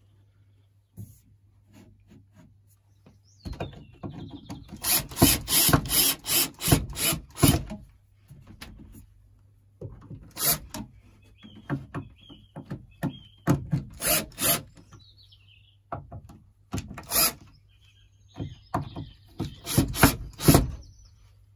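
Runs of quick scraping strokes against wood, about three a second, starting and stopping several times.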